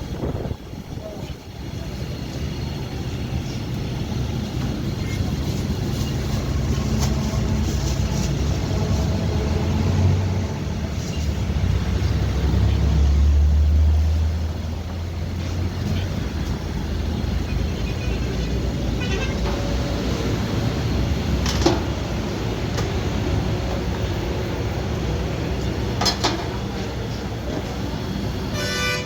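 Road traffic: vehicle engines running, loudest about twelve to fourteen seconds in, with a couple of short sharp sounds later on.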